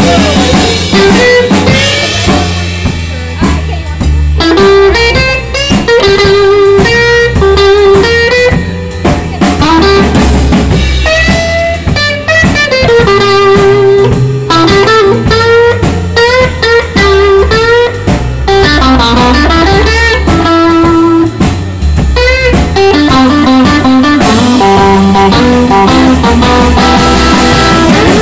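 Live electric blues band playing an instrumental passage: an electric guitar takes the lead with bending notes over electric bass and a drum kit.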